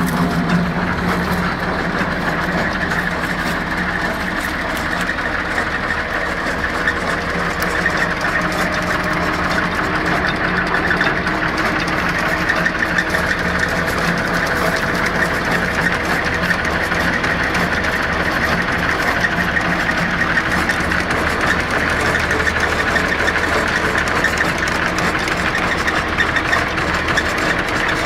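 Tractor engine running steadily and driving a homemade wood chipper through its PTO shaft: an even, continuous mechanical drone with no change in speed.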